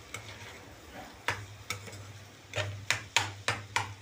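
A spoon stirring a pot of cooked pumpkin curry, knocking and scraping against the pot in a run of sharp clinks that come closer together and louder in the second half.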